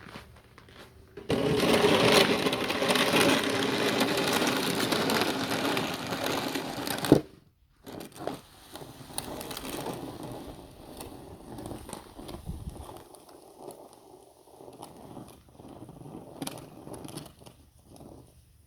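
Small snow blower motor running steadily while clearing snow, starting about a second in and stopping abruptly after about six seconds; quieter irregular scraping and crunching of snow follows.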